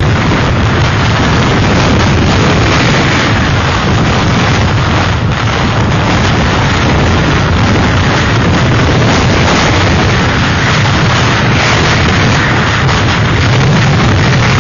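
Hurricane-force wind roaring steadily, buffeting the microphone with a loud, unbroken rumble.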